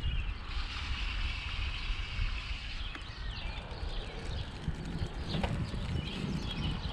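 Wind rumbling on the microphone of a moving bicycle, with birds chirping in short high calls through the second half.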